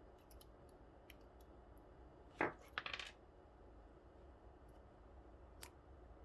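Small metal clicks and clinks as the disassembled Assa cylinder lock's parts and tools are handled, with a louder clatter about two and a half seconds in followed by a few quick clinks.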